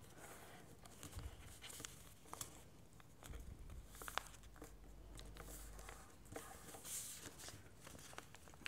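Faint rustling and small crackles of a square of paper being folded by hand, its corners pressed in and creased against a wooden table. A faint low rumble runs for a few seconds near the middle.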